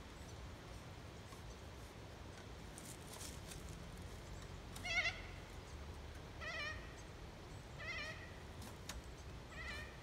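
An animal giving four short, wavering, bleat-like calls about a second and a half apart, the first one the loudest.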